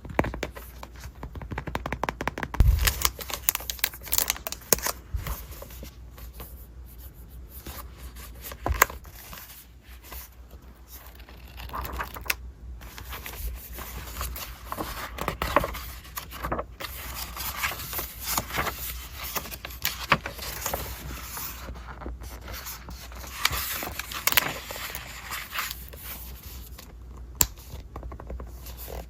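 Packaging being handled and opened: irregular scraping, tearing and crinkling of paper and plastic, with scattered clicks and taps.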